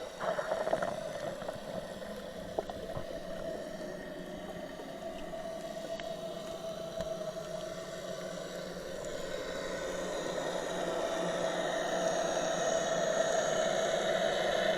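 Boat engine running with a steady drone, growing louder over the last few seconds.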